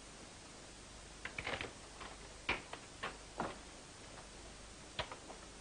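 Footsteps knocking on a wooden floor, a few irregular steps, then a door pulled shut with a sharp latch click about five seconds in.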